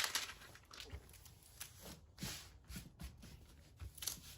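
Faint, soft rustling and light taps of hands smoothing the plastic cover sheet over a diamond painting canvas.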